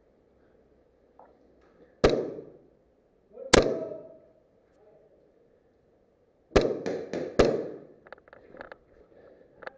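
Airsoft guns firing single sharp shots that echo off concrete walls. There are four loud cracks, at about two seconds, three and a half seconds, six and a half seconds and seven and a half seconds, with lighter shots among the last two and a run of quieter clicks and taps near the end.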